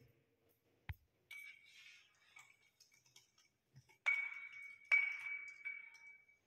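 Small metal parts clinking while wire ends are worked into a switchboard's switch terminals: a click, some light handling and scraping, then two sharp metallic clinks about a second apart. The second clink rings on for over a second as a steady high tone.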